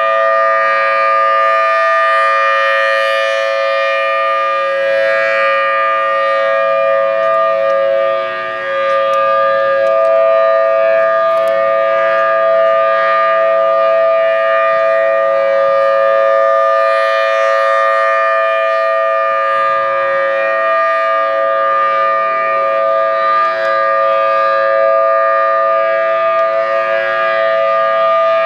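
Federal Signal Thunderbolt 1000T supercharged dual-tone tornado siren sounding during a test: a loud, steady two-tone wail whose pitch holds level, dipping briefly in loudness once.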